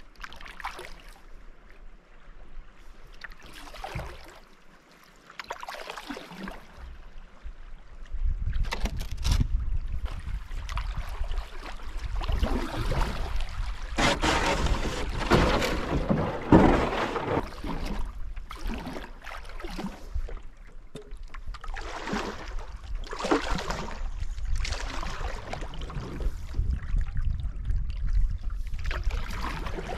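Canoe paddle strokes: a swish and splash of water every second or two, with a denser rush of water about halfway through. From about eight seconds in, a low wind rumble on the microphone sits under the strokes.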